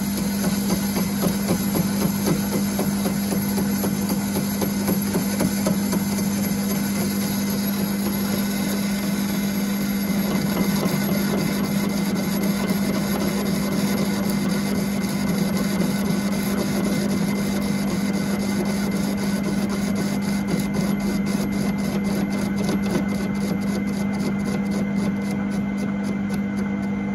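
Myford ML-7 lathe running on slow speed, its motor humming steadily as the turning tool takes a facing cut across a weld on a steel cup, with a rough scraping chatter; the weld is harder than the surrounding mild steel. A fast regular ticking comes in over the last several seconds.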